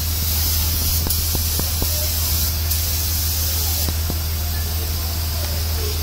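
Compressed-air paint spray gun hissing steadily as it sprays paint onto sheet-metal panels, over a steady low hum.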